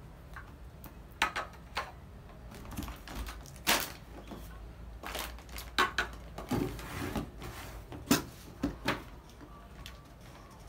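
Metal milk cans and packaged cartons handled in a cardboard box: a string of separate sharp knocks and clinks as cans are set down and moved, with a short rustle of packaging partway through.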